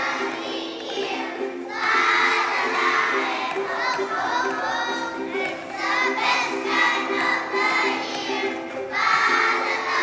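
Children's choir singing together in phrases over steady, repeating instrumental accompaniment.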